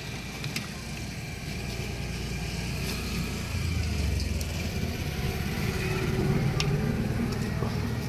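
Small battery-powered handheld fan blowing air onto charcoal to get the fire going: a steady whir with a low rushing rumble that grows stronger about halfway through.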